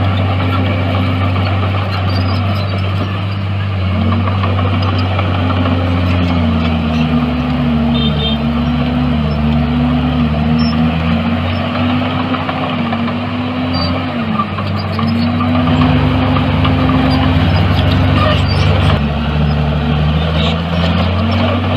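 Diesel engine of heavy earthmoving equipment running steadily. Its note dips about six seconds in and rises back near the end.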